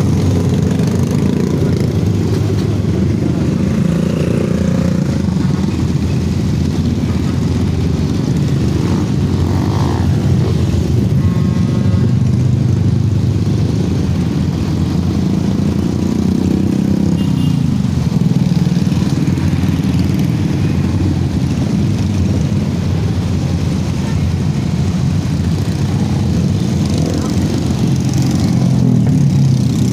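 Dense crowd of motorcycles running and revving at low speed close by, a steady mass of small-engine noise.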